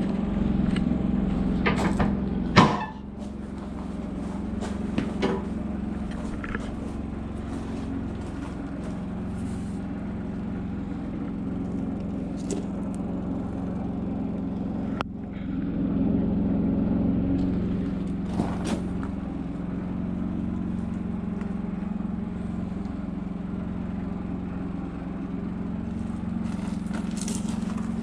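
Bobcat skid steer's diesel engine running steadily, swelling in load about halfway through, with occasional clanks and a sharp knock a couple of seconds in.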